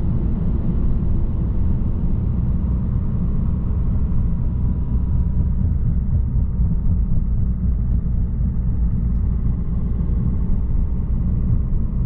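Steady low road and engine rumble inside a moving Citroën car's cabin at highway speed.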